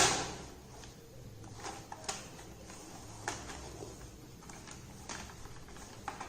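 Plastic snap-fit clips of a laptop case clicking as the panel is pried apart by hand: one sharp snap right at the start, then a few scattered quieter clicks.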